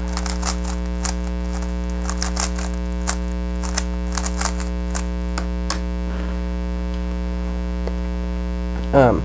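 Quick irregular clicks of a GAN 356 RS 3x3 speed cube's plastic layers being turned, over a steady electrical hum; the clicks thin out after about six seconds.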